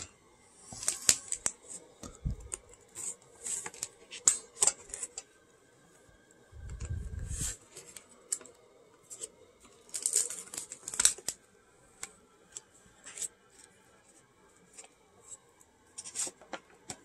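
Irregular sharp clicks and crinkles of padded paper mailers and plastic packaging being handled, with a dull thump about seven seconds in.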